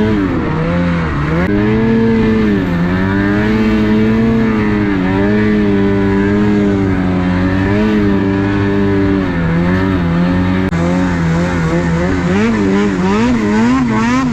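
Snowmobile engine running under throttle, its pitch rising and falling with quick throttle changes at first and again near the end, steadier in between.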